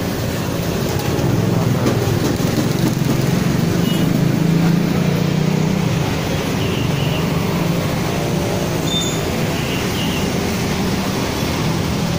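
A motor vehicle engine running steadily at idle nearby, a low hum that grows a little louder about a second in.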